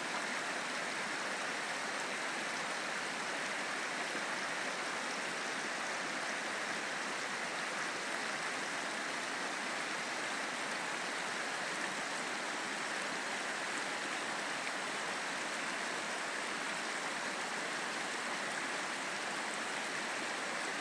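River water running: a steady, even rush of flowing water.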